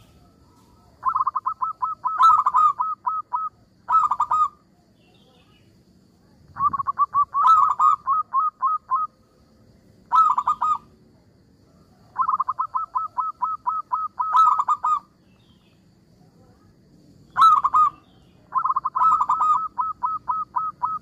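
Zebra dove (perkutut) cooing: seven bursts of rapid staccato coo notes, each burst from under a second to about three seconds long, with short pauses between them.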